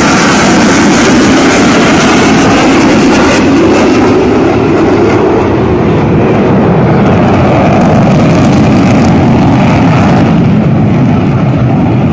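Military jet aircraft passing overhead: a loud, steady jet-engine roar. Its high hiss thins after about three seconds and again near the end.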